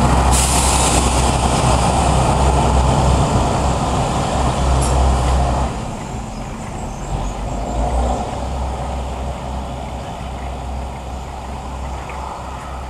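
Diesel engine of a Ferrovia Circumetnea ADe railcar running with a deep, steady rumble as it moves off hauling three hopper wagons, with a short hiss of air about half a second in. The rumble drops noticeably about six seconds in and carries on fainter as the train pulls away.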